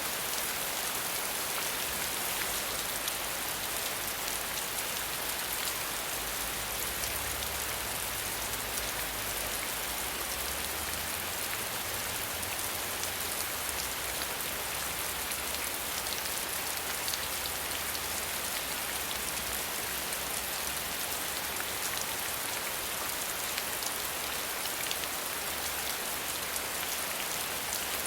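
Steady rain falling, a dense even hiss with fine scattered drop ticks over a soft low rumble.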